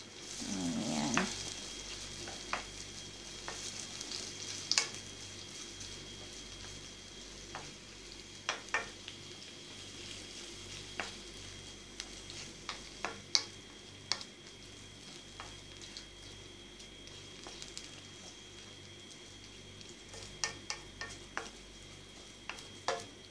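Shrimp simmering and sizzling in boiling 7 Up with garlic and oil in a wok, while a wooden spoon stirs them and knocks against the pan in scattered sharp clicks.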